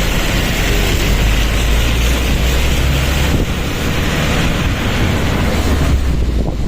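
Strong wind buffeting the microphone over the low rumble of a moving vehicle, easing slightly near the end.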